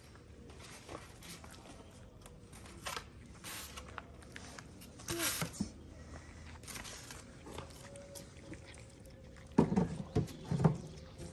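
Stray cats eating dry kibble from foam trays: scattered small crunches, clicks and rustles, with a short run of louder knocks near the end.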